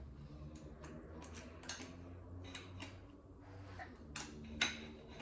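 Irregular light metallic clicks and ticks of a hand tool working on the number two connecting-rod cap of the Galaxie's engine, under a faint steady low hum. The bottom end is being opened up to find the bearing that has been shedding metal into the oil.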